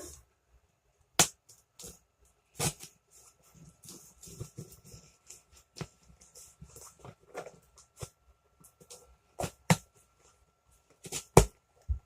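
A cardboard package being handled and opened by hand: irregular sharp knocks and clicks with scraping and rustling between them, the loudest about a second in, near three seconds in, and about eleven seconds in.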